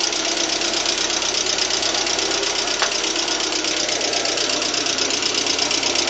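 Lada Priora's VAZ-21126 1.6-litre 16-valve four-cylinder engine running with a fast, even knock. After a rebuild with 82.5 mm pistons, the owner says it sounds like hydraulic lifters or piston knock, cold or hot.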